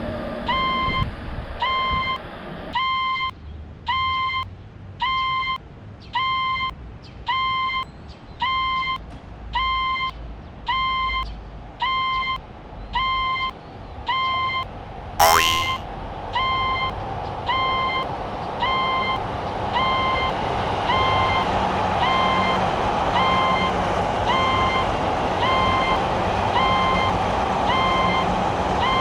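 Japanese railroad crossing alarm ringing, a clanging electronic tone repeated steadily over and over. A train's running noise dies away about three seconds in. About halfway another train arrives with a sudden loud whoosh and keeps rushing past under the alarm.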